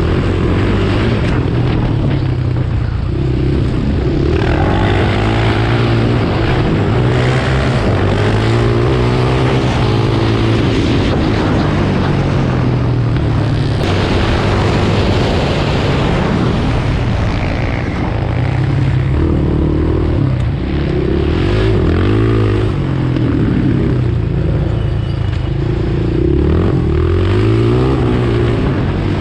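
Sport quad's engine at racing speed, its pitch climbing and dropping again and again as it revs up through the gears and backs off for corners, with a steady rush of wind and road noise.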